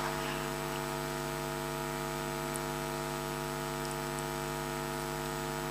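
Steady electrical mains hum, buzzy and unchanging, with a faint hiss.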